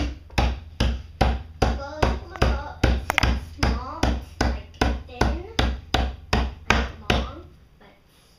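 A steady run of heavy thumps, about two and a half a second, that stops about a second before the end.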